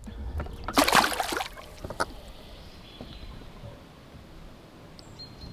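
A short splash of water about a second in, followed by a single sharp knock about a second later, over a low background hum.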